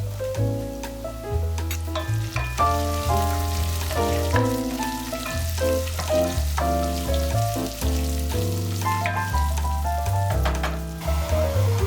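Background music with melodic notes over a bass line, with food sizzling as it fries in a pan underneath.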